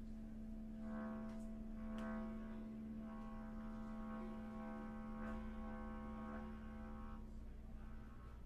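Bass clarinet holding one long, soft low note that stays steady in pitch and thins out in its upper overtones about seven seconds in.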